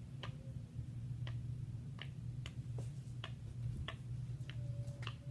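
A run of light, sharp clicks, irregularly spaced at roughly one or two a second, over a steady low hum.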